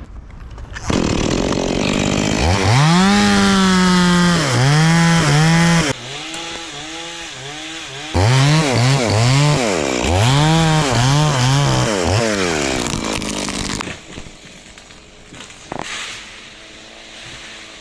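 Stihl chainsaw revving in repeated throttle bursts, its pitch rising and falling over and over, then dropping away about three-quarters of the way through.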